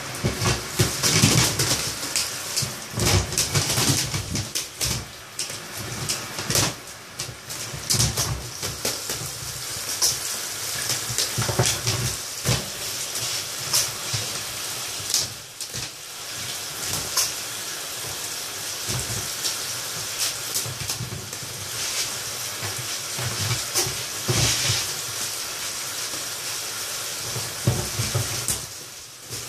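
Shower spray hissing steadily onto a blue-and-gold macaw and the bathtub, broken by irregular bursts of splashing and wet wing-flapping as the macaw spreads and shakes its wings under the water.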